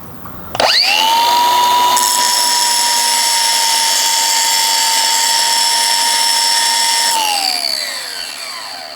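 Electric grinder grinding a notch into the head of a steel wheel stud. It spins up about half a second in, runs at a steady high whine for about six seconds, then is switched off and winds down near the end.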